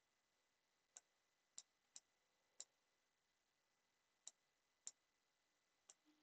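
Faint, sharp clicks of a computer mouse, about seven, spaced unevenly over a few seconds against near silence.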